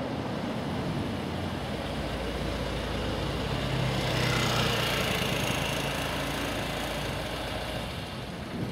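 Road traffic noise: engines running steadily, with one vehicle passing close so that the sound swells to its loudest about four to five seconds in and then eases off.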